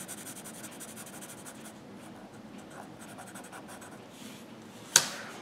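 Felt-tip permanent marker scratching softly on paper as a dark area is filled in with short strokes. A single sharp click about five seconds in.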